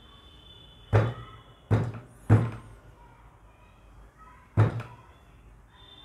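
Screwdriver knocking four times on the upper metal contact strip inside an instant water heater's switch housing, sharp knocks with a short metallic ring, unevenly spaced. The strip is being bent down to close its gap to the lower strip so that the heater switches on at low water pressure.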